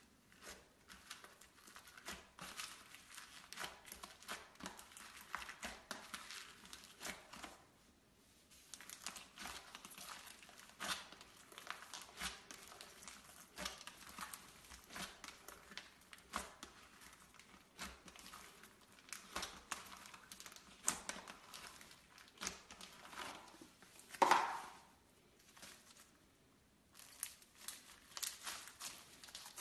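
Hands kneading and squeezing floam, sticky slime packed with small foam beads: a dense, irregular run of crackling and crunching as the beads rub and pop in the slime. It pauses briefly twice, and there is one louder sound near the end.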